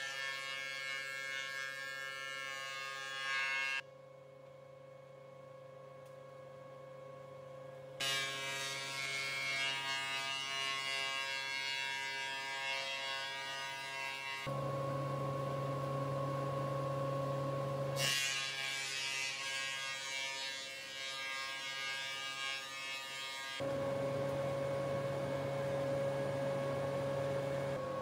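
Industrial thickness planer running, a steady motor hum with the hiss of boards being planed. The sound changes abruptly several times, dropping quieter from about four to eight seconds in.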